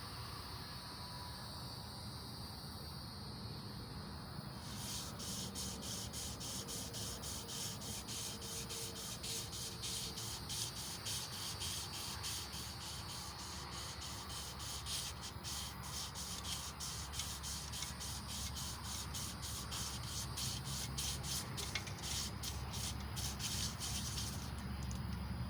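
Emery cloth being worked rapidly back and forth on a small-block Chevy 350 crankshaft, a fast rhythmic rasping that starts about five seconds in and keeps going. A steady cricket chirp is heard before the rubbing begins.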